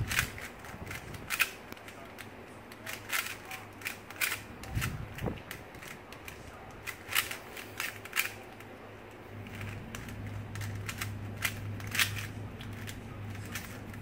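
A plastic 3x3 Rubik's cube being turned rapidly by hand during a timed solve: irregular bursts of sharp clicks and clacks as the layers snap round, over a steady low hum.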